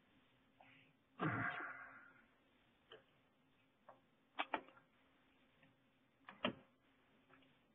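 Scattered computer mouse clicks, single and in quick pairs, heard faintly over a conference-call line, after a short rush of noise about a second in.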